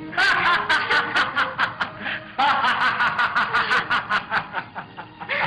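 Loud, prolonged laughter in rapid bursts, in two long runs with a brief break about two seconds in, on a band-limited 1950s film soundtrack.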